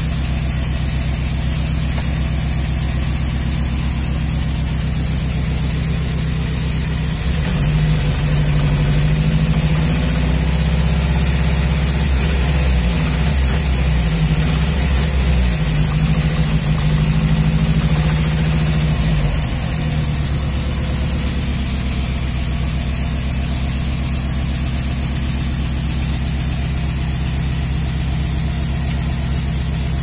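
Nissan 200SX engine running with a misfire: it idles, then the revs are raised and held for about twelve seconds from about seven seconds in, before it drops back to idle.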